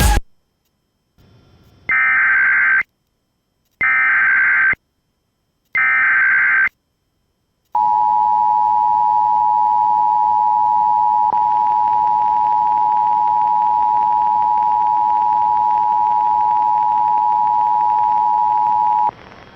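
Emergency Alert System tones: three short bursts of SAME digital header data, each a harsh buzzing screech about a second long with a second's gap between them, then the EAS two-tone attention signal, a steady two-note tone held for about eleven seconds before it cuts off. Together they mark the start of an emergency alert, here a silver alert.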